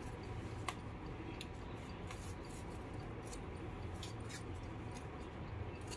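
Paper baking-cup liner being peeled off a baked cupcake: faint scattered crinkles and rustles of paper, over a low steady hum.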